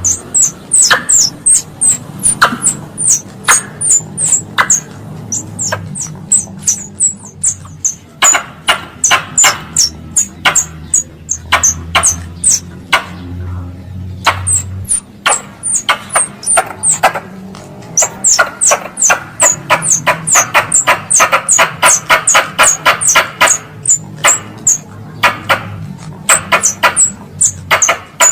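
Squirrel calls played as a lure for wild squirrels: rapid, sharp high chirps and squeaks, several a second, each dropping slightly in pitch. They come in long runs with a brief lull about halfway through.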